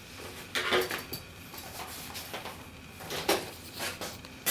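A few sharp knocks and clatters of a poster board being handled and set onto an easel, the loudest about a second in and again past three seconds.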